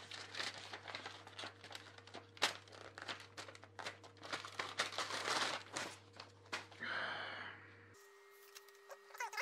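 Paper rustling and crinkling, with many quick crackles, as a letter and its envelope are handled, opened and unfolded. The rustling thins out after about six and a half seconds.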